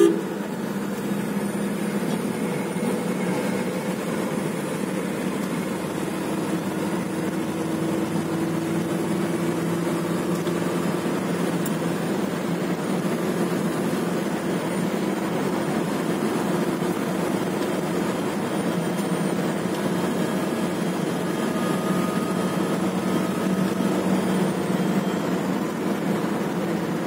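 Mahindra Xylo heard from inside the cabin at highway speed: a steady engine drone mixed with tyre and wind noise as the car accelerates toward 120 km/h.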